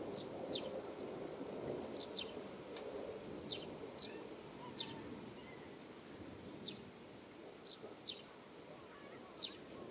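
Eurasian tree sparrows chirping, about a dozen short single chirps at irregular intervals, over a faint low rumble that slowly fades.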